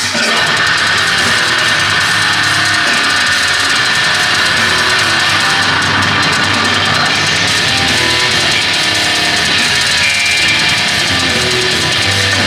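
Technical death metal band playing live: distorted electric guitars, bass guitar and drum kit in a loud, continuous, dense wall of sound.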